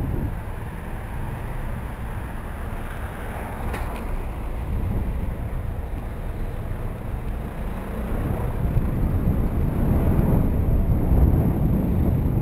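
Street traffic and rumbling wind noise heard from a camera on a moving bicycle filtering past queued cars, with a sharp click about four seconds in. The rumble grows louder over the last few seconds.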